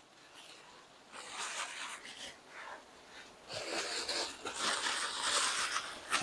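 White wrapping paper rustling and crumpling as ornaments are unwrapped by hand, in short spells about a second in and more steadily from about three and a half seconds in.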